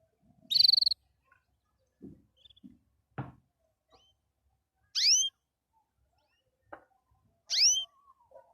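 Pet canary calling in short phrases: a loud high buzzy trill about half a second in, then two sharp rising chirps about two and a half seconds apart. A few soft knocks fall between the calls.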